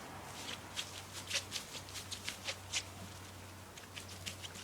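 Hand-held sparkler burning with a light crackle: a quick run of sharp little pops over the first three seconds, then a few more near the end.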